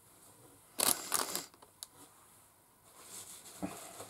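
Handling noise from cosmetic products and their packaging: a short cluster of rustles and clacks about a second in, a single sharp click, then softer rustling and shuffling near the end as items are put aside and the next one is picked up.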